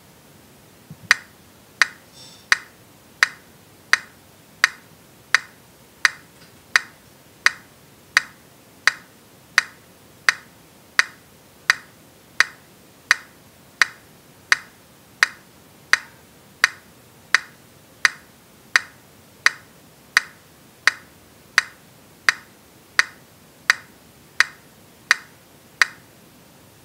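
Software metronome clicking steadily at 85 beats per minute, a little under one and a half clicks a second.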